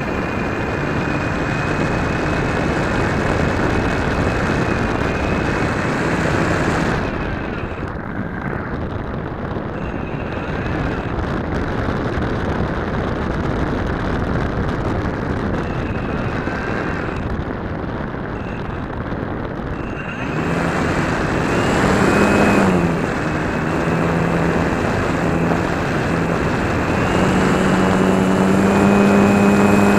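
Onboard sound of a radio-controlled Sig Senior model airplane: its motor and propeller running under rushing wind. The sound eases off and is quieter through the middle, then stronger again near the end as the plane rolls along a dirt strip after landing.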